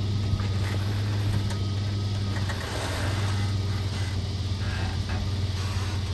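Four-wheel drive's engine running steadily at low revs, a constant low drone, with a few faint knocks over it.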